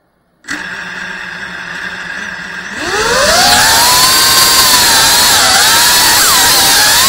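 FPV quadcopter's brushless motors and propellers: they spin up to idle with a sudden steady hum about half a second in, then throttle up near three seconds in, the whine rising steeply in pitch to a loud buzz that wavers with the throttle as the quad lifts off and flies.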